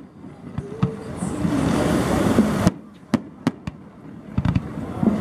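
Fireworks going off in a sequence of sharp bangs, a few near the start and a quick cluster of three a little past halfway. A dense stretch of noise fills the gap between them.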